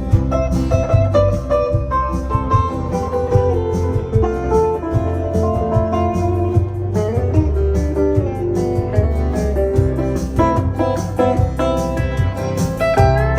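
Instrumental break in a band's song: a lead guitar plays a melody, some notes sliding in pitch, over bass and drums, with no singing.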